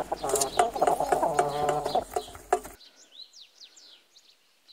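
Caged chickens clucking, cut off abruptly about three seconds in. A few faint, quick chirps of small birds follow.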